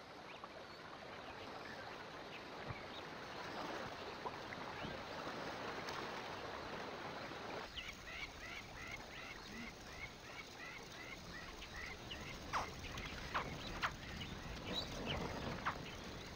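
Wildlife ambience: an even background hiss, then from about eight seconds in a run of short, high chirping calls, about three a second, with a few sharp clicks near the end.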